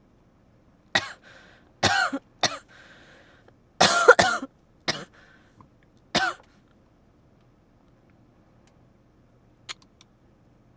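A person with a bad cold coughing in a fit: about six coughs over some five seconds, the loudest about four seconds in.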